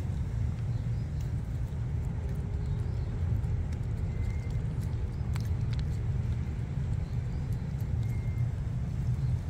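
Steady low rumble of outdoor background noise, with a few faint clicks about halfway through.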